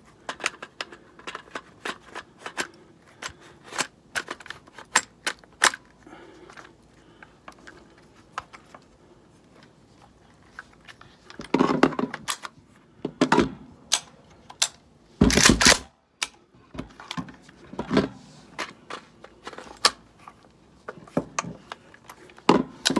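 Handling noise from a Mak 90 AK-pattern rifle and its magazine: a run of sharp metallic clicks and clacks, with a few heavier knocks and one loud bang a little past the middle.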